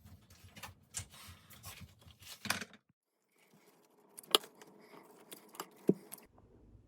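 Scattered clicks, taps and rustling of objects being handled, in short edited snippets, with a few sharper knocks around the middle.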